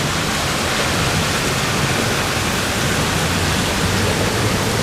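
Steady, loud rushing of water, an even unbroken wash of noise.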